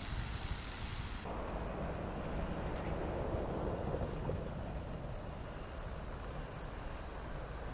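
Crickets and other autumn insects chirping in a steady high trill, over a low rumble.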